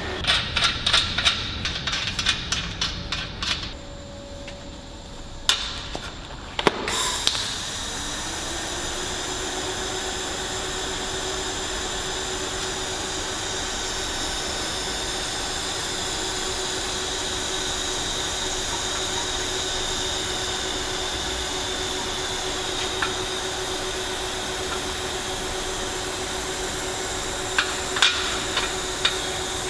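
Light rapid clicking and two sharp knocks, then, about seven seconds in, a steady hiss with a low hum from a TIG welding arc on thin-wall stainless pipe, which holds to the end with a few more clicks near the end.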